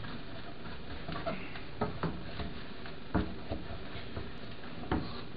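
A cooking utensil knocking and scraping against a frying pan while noodles are stirred and fried, a few sharp, irregular clicks over a steady hiss.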